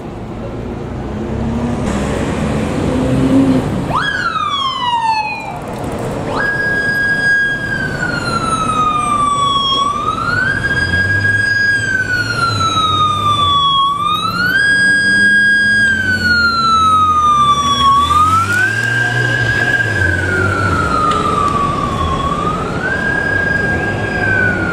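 Siren of a Yamaha FJR1300P police motorcycle, switched on about four seconds in with a quick falling sweep, then wailing: it holds a high note, slides down and jumps back up about every four seconds, signalling an emergency run. The motorcycle's engine can be heard underneath.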